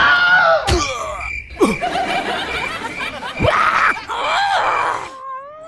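Fight-scene sound effects: several sharp hits, each with a falling swoosh, mixed with exaggerated vocal groans, grunts and snickering laughter.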